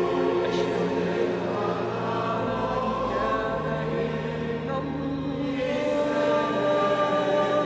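Choral music: a choir singing long held chords, which shift about halfway through.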